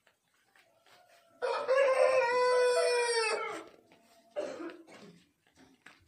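An Aseel gamecock crowing once: a single long crow of about two seconds that holds its pitch and then sags at the end. It is followed about a second later by a short, weaker call.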